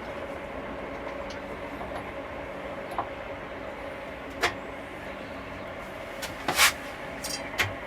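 A few sharp knocks and clinks of motorcycle parts and tools being handled during the swing arm removal, over a steady hum. The loudest come about six and a half seconds in.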